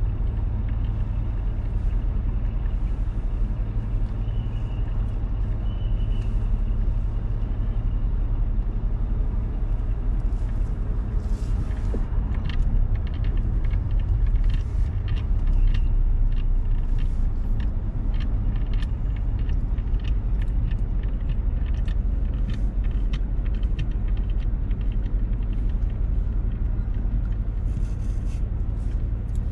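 A car driving through city traffic: a steady low rumble of engine and road noise, with scattered short clicks and knocks from about ten seconds in.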